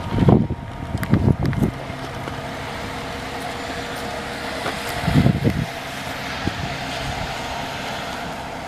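Excavator-mounted telescopic vibratory pile hammer and its excavator running steadily, a continuous mechanical hum with level tones, with a few low gusts of wind on the microphone.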